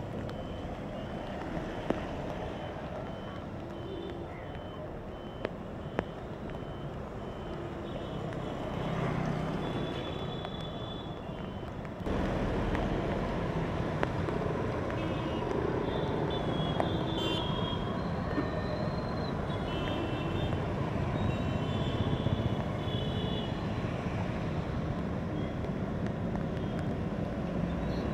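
Road traffic on a rain-soaked street: engines and tyres running through standing water, with a faint high beep repeating for the first part. About twelve seconds in it changes abruptly to louder, steadier road noise, with scattered high beeps.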